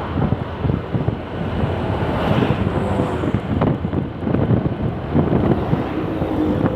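Strong gusty wind buffeting the microphone, a loud, uneven low rumble, mixed with passing road traffic.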